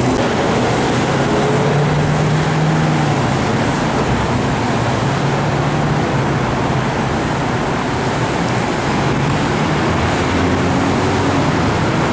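Steady city traffic noise, with the hum of engines rising and fading a little.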